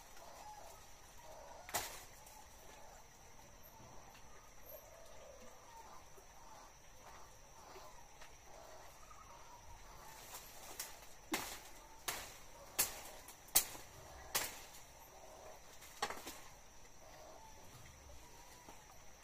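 Blade hacking at tree branches: one sharp strike about two seconds in, then a quick run of about six strikes, each under a second apart, a little past halfway through.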